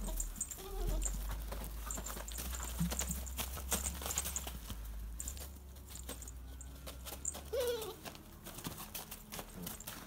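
Puppies scuffling and pawing in straw and on a plastic feed sack, making many small rustles and clicks. One puppy gives a short whimper about seven and a half seconds in.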